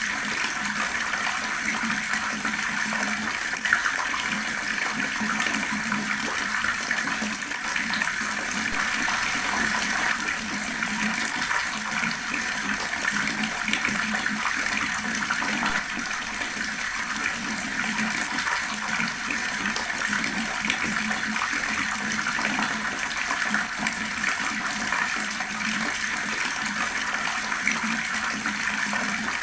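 Water running steadily from a tap, a continuous gurgling splash.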